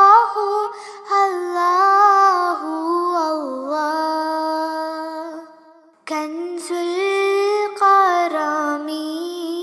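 A naat, an Islamic devotional song, sung by a high solo voice in long, ornamented held notes. It breaks off for a moment a little past halfway and then resumes.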